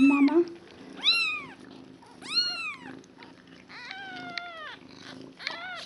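Day-old kitten mewing: four or five high, arching cries about a second apart, one near the middle held longer and flatter.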